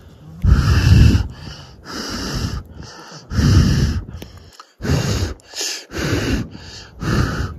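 A person blowing hard on campfire embers to fan them into flame: a run of loud, rushing breath puffs, roughly one a second, with short breaths between.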